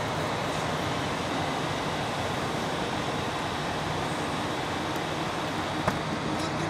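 Steady background din of an airport, an even rushing noise with no distinct events, and a single short click near the end.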